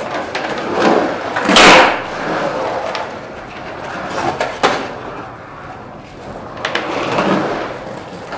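Skateboard wheels rolling on the concrete of an empty swimming pool, swelling and fading as the skater carves up and down the walls, loudest a little under two seconds in. A few sharp clacks from the board come in between.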